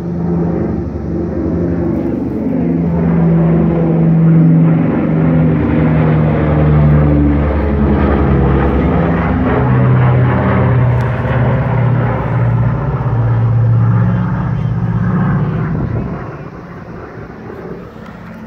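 Airplane flying low overhead: a loud drone whose tones drop in pitch as it passes, fading away about sixteen seconds in.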